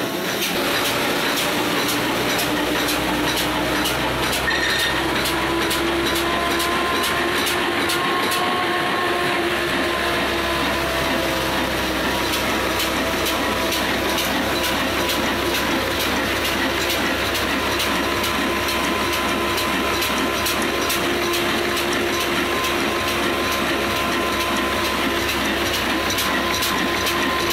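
Fine Mughal 22 HP diesel engine of the Ruston Hornsby type running steadily while driving a cutter machine. It makes a loud, even mechanical clatter with a regular beat of knocks and a steady hum over it.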